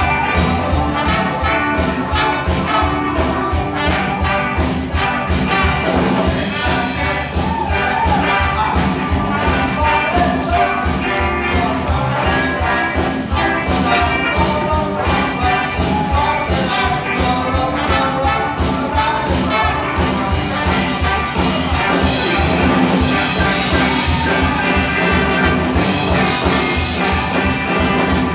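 Live rock and roll band playing with saxophone, trumpet and trombone, electric guitars and a drum kit keeping a steady fast beat.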